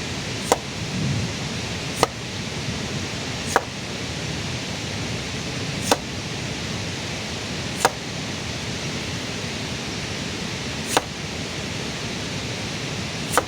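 Steady rain, an even hiss, with about seven sharp clicks or knocks at irregular intervals.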